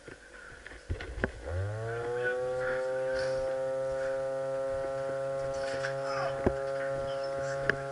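A machine starts up about a second and a half in, its pitch rising quickly and then holding as a steady buzzing tone. A few sharp clicks sound over it.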